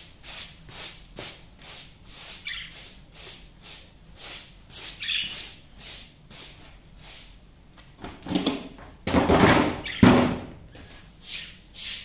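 Caged budgerigars chirping over a run of quick, regular clicks, with a loud burst of knocking noise about nine seconds in.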